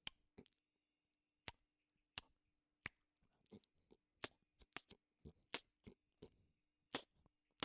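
Faint, irregular clicks and taps, roughly two a second and unevenly spaced, over a low steady hum.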